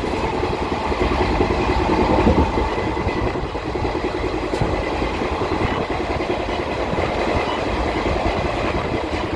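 Doon Express passenger train running along the track: a steady noise of wheels on rails.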